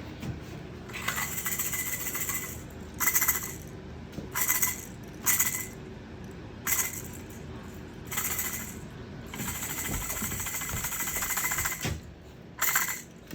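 Small toy car clattering and rattling in about eight separate bursts, some brief and some a second or more long, as a Moluccan cockatoo pushes and handles it.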